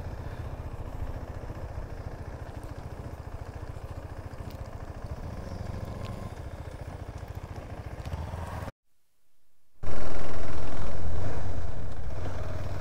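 Motorcycle engine running as the bike is ridden, a steady low beat of fast, even firing pulses. About two-thirds of the way in the sound drops out for about a second, then comes back much louder and slowly fades.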